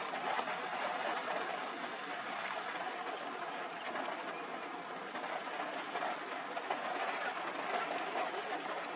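Waterfall in monsoon spate, its falling water making a steady, even roar. A thin high steady whine sounds over it for about two seconds near the start.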